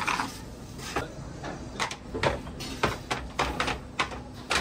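Terracotta baking dishes and a long oven peel clacking and scraping as the dishes are loaded and slid into a stone oven: an irregular run of sharp knocks, about ten of them.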